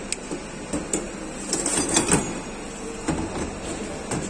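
Short metallic clicks and clatter of tools and parts being handled at a car wheel, loudest in a cluster about two seconds in.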